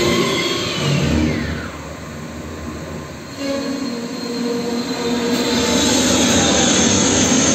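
Film soundtrack sound effects played loud over cinema speakers: a rushing, rumbling noise with a falling whistle in the first two seconds, easing off midway, then building into a steady jet-aircraft noise as an airliner flies at the viewer.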